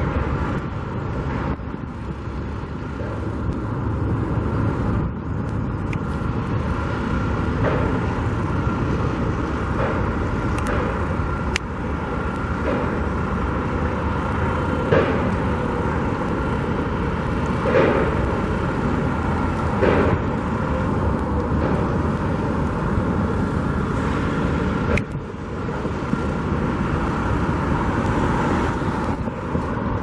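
Steady rumble of engines and road traffic around a steel-frame construction site, with a faint steady whine and a few brief knocks.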